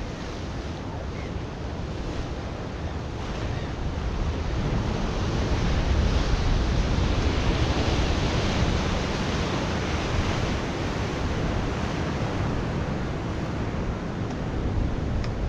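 Ocean surf breaking against a rocky point: a steady wash of waves and foam, growing louder about six seconds in as a larger wave crashes on the rocks, then easing back.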